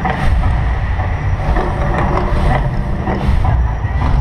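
Deep, steady rumble of the Mirage volcano show, with short whooshing surges every second or so as the flames erupt.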